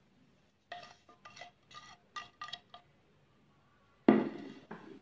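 Ceramic plate and spoon clinking as spices are tipped from the plate into a glass bowl: six or seven short ringing clinks in about two seconds. About four seconds in comes one louder knock of crockery, with a brief ring after it.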